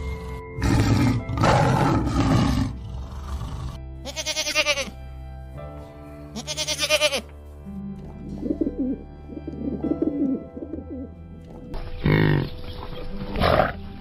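Background music with animal calls laid over it. A tiger's loud growling roar comes about half a second in, with shorter pulsed growls after it. From the middle, pigeons coo in soft wavering calls, and two louder animal calls come near the end.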